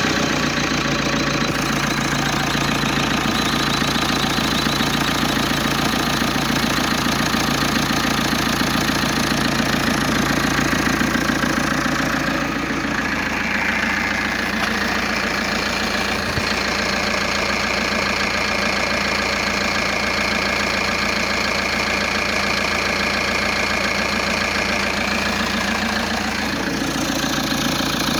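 Opel Vectra engine idling steadily, with the strange noise the owner hears near the crankshaft damper pulley. Its tone shifts about halfway through and shifts back near the end.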